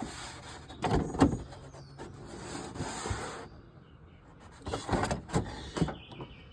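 Car body trim parts around a turn-signal light being fitted back into place by hand. Rustling and scraping, with several sharp knocks and clicks: a cluster about a second in and another near the end.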